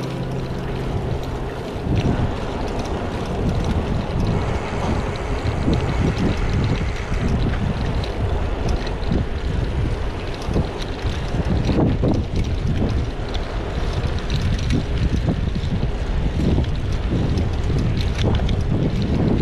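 Wind buffeting a bicycle-mounted action camera's microphone while riding, with low road rumble and scattered small clicks and rattles.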